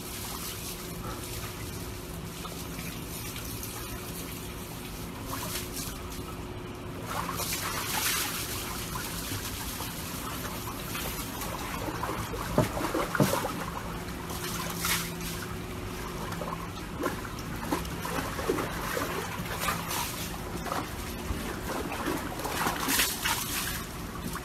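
Water trickling and sloshing in a plastic tub with a husky sitting in it, water spilling over the rim. From about halfway through, the dog's movements set off a series of louder splashes.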